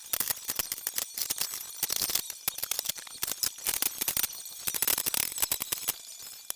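Flux-cored wire-feed welding arc crackling in fast, irregular pops, easing off about six seconds in.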